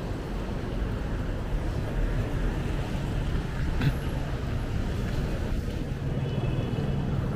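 Steady traffic noise from cars and motorbikes on a rain-wet city street, mostly a low rumble, with a brief click about four seconds in.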